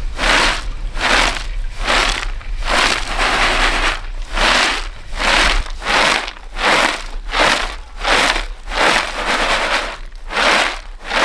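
Rhythmic scraping strokes, about three every two seconds, each swelling and fading, over a steady low hum.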